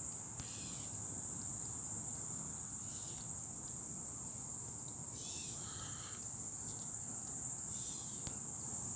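Insects trilling in one steady, unbroken high-pitched chorus, with a faint low rumble beneath and a few brief faint chirps.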